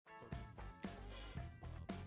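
Music with a steady drum beat, about two beats a second, over held tones and bass.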